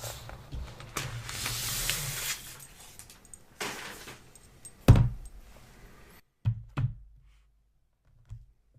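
Handling of a new MacBook Pro and its cardboard box: a sliding, rustling noise as it is lifted out, a thump about five seconds in, then two lighter knocks before it goes quiet.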